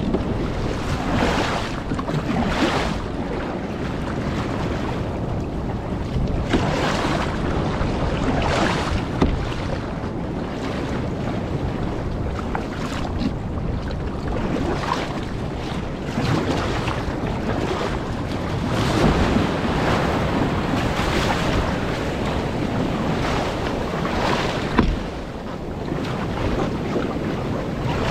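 Wind buffeting the microphone over rushing water and breaking surf around a kayak being paddled through waves, with repeated splashes from the paddle strokes.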